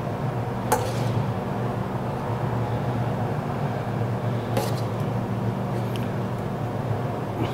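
A few light clinks of a metal spoon against a stainless steel mixing bowl as the quiche filling is scraped out into the tart shell, over a steady low hum.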